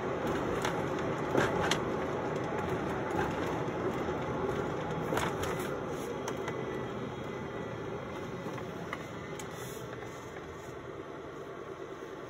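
Ford F-150 pickup's engine and road noise heard from inside the cab, dying down steadily as the truck slows to a stop. The driver is coasting down to idle to check for the high idle he ties to a P0122 throttle position code.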